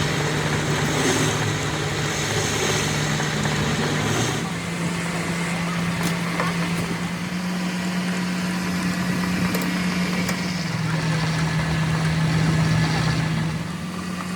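A steady mechanical hum, like an engine or motor running, over constant workshop noise. Its pitch steps up slightly about four seconds in.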